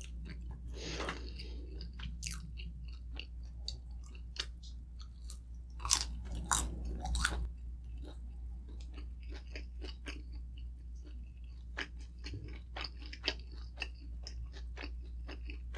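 Close-miked chewing and crunching of fried pork intestines (isaw), with many small wet mouth clicks throughout and a louder run of crunchy bites about six to seven seconds in.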